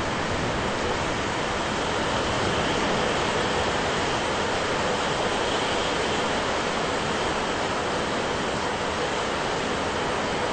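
Steady rushing hiss of heavy rain in a thunderstorm, with no thunderclap.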